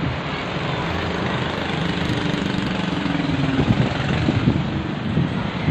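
Heavy diesel truck engine running steadily at low revs.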